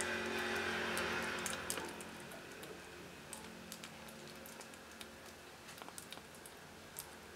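Kitten eating wet cat food from a shallow glass bowl: a string of small, wet chewing and lapping clicks. There is a louder hiss for the first two seconds, then the clicks carry on more faintly.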